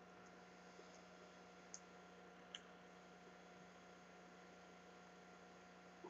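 Near silence: a steady low hum, with two faint ticks less than a second apart in the first half.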